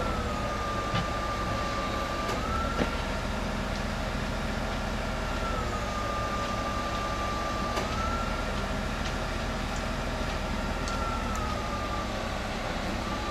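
Plasser & Theurer multiple tie tamper (track tamping machine) running: a steady engine drone under a high whine that dips slightly in pitch and climbs back every few seconds, with a couple of faint clicks.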